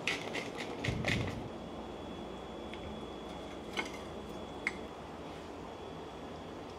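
Faint kitchen handling sounds: a few light scrapes and knocks with a dull thump in the first second or so, then two small clicks of cutlery on a plate over a steady low hum of room noise.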